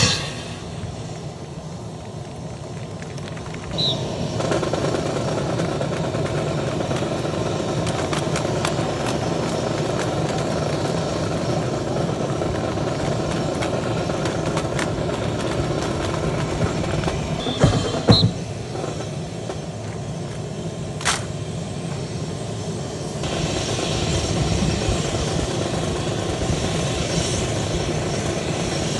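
Steady drone of an aircraft engine running on the airfield, setting in about four seconds in after a drum beat dies away. A few sharp claps of rifles slapped in the drill team's hands come a little past halfway.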